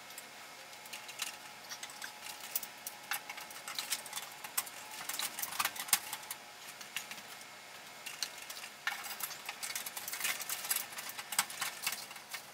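Hands working inside an opened fluorescent ceiling fixture: irregular small clicks and rattles of wires and metal parts being handled, busiest in two stretches.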